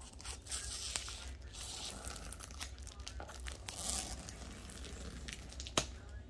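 Plastic packaging crinkling and rustling as a tube holding a rolled diamond painting canvas is handled and opened, with a sharp click a little before the end.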